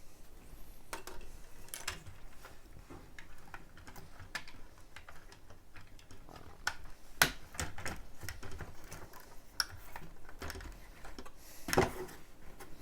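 Lego plastic bricks being handled and pressed together: irregular small clicks and taps, with a sharper click about seven seconds in and a quick cluster of clicks near the end.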